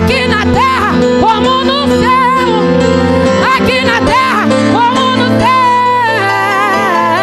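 Live gospel worship song: a woman singing with vibrato into a microphone over a band with bass and acoustic guitars, steady low notes held underneath.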